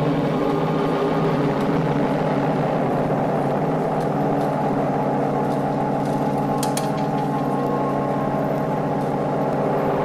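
A steady, low droning hum with several layered tones over a noisy haze, played from a vintage Halloween sound-effects record. A couple of faint high ticks come about two-thirds of the way through.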